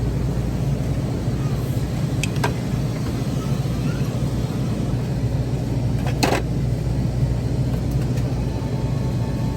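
Steady low rumble of a car driving, heard from inside the cabin, with a couple of faint clicks and one sharper click about six seconds in.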